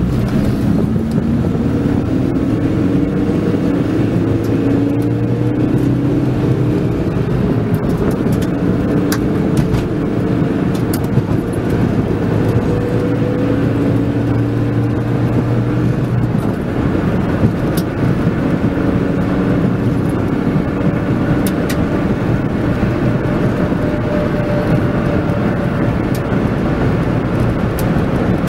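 A car's engine and road noise heard from inside the moving car, the engine note slowly rising several times as it pulls along.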